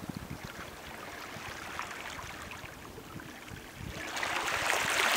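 Shallow sea water lapping gently, with a louder wash of a small wave coming in about four seconds in.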